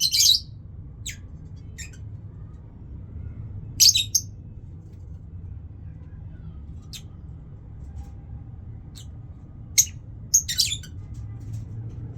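Small pet birds giving short, high chirps every second or two, with louder clusters of chirps about four seconds in and again near the end, over a faint low hum.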